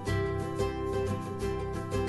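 Background music: an acoustic guitar strumming in a steady rhythm.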